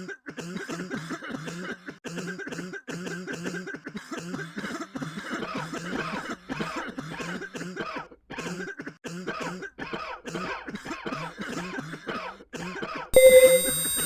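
A person coughing over and over in short, rapid coughs, about two to three a second. Near the end the coughing cuts off and a loud, steady electronic tone starts suddenly.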